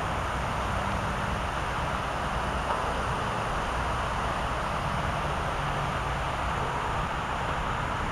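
Steady rushing hiss of many fountain water jets spraying and splashing back into the pool, with a low rumble underneath.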